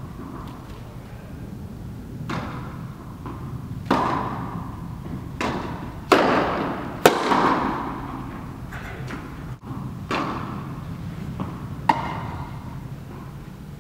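Tennis ball rally: sharp pops of the ball on the racket strings and thuds of bounces on the court, coming irregularly about a second or two apart. Each hit rings on in the echo of the indoor hall.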